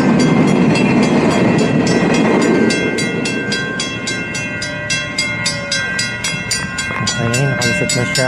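A train running, its heavy rumble easing about three seconds in. Over it comes a rapid, even ringing of about five strokes a second, with steady high tones.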